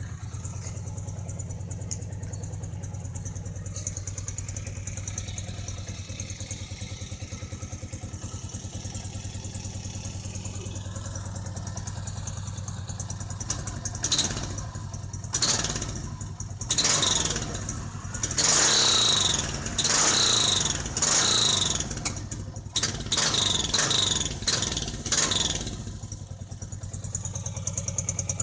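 Honda CG Titan 2000's 125 cc single-cylinder engine breathing through a 45 cm ML Competition aftermarket exhaust, idling steadily, then revved in a series of short throttle blips in the second half. Each blip brings a high whistle from the exhaust; the bike whistles a lot with this pipe.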